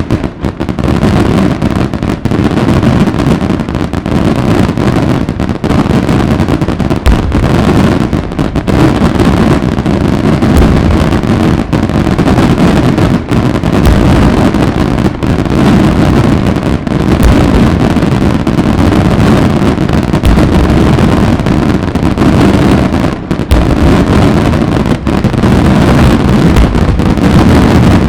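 Daylight fireworks barrage: a dense run of salute reports so close together that they merge into a loud, continuous rumble, with sharper bangs standing out throughout.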